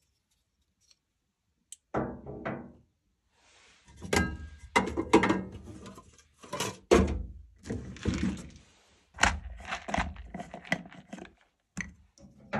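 A run of irregular thuds and knocks, each with a short ringing tail, starting about two seconds in and going on until near the end.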